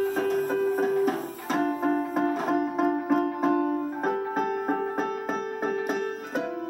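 Electronic keyboard being played by a child: a quick run of short notes, about five a second, over a held lower note that shifts pitch twice.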